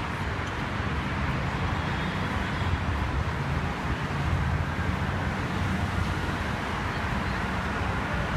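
Steady outdoor city background noise, a low even rumble of traffic with no distinct events.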